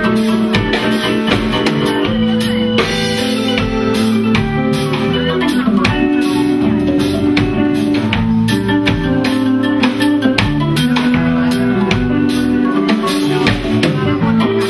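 Live rock band playing: a drum kit keeping a steady beat under electric guitar and an organ-toned keyboard holding sustained chords.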